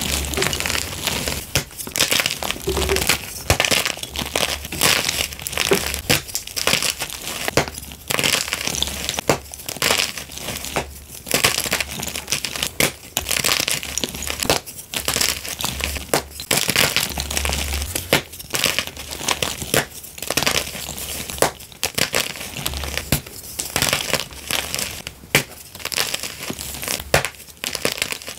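Blocks of gym chalk being snapped and crushed by hand: an irregular run of sharp snaps and crunches over a continuous crumbling crackle of breaking chalk.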